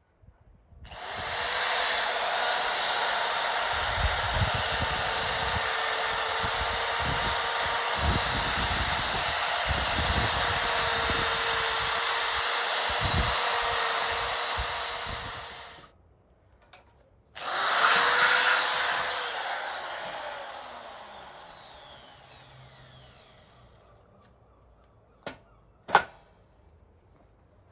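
Handheld power tool cleaning carbon and aluminium oxidation off a motorcycle cylinder head, running steadily for about fifteen seconds. After a short stop it runs again, then is let go and winds down with falling pitch. Two sharp clicks follow near the end.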